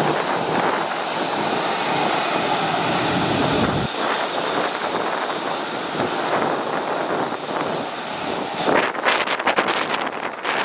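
Airbus A321-211's CFM56 jet engines running at low thrust as the airliner taxis and turns close by: a steady jet noise with a high fan whine. About two seconds before the end, gusts of jet blast buffet the microphone.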